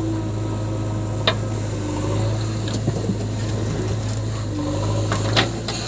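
Heavy diesel engine running steadily at a low drone, with a few sharp metallic clanks, the clearest about a second in and near the end.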